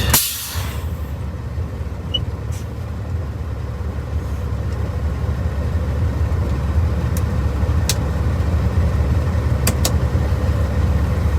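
Steady low drone of a heavy truck's diesel engine heard from the cab, a Peterbilt 379 with a Caterpillar C15. A brief rush of noise comes at the very start, and a few sharp clicks come near the end.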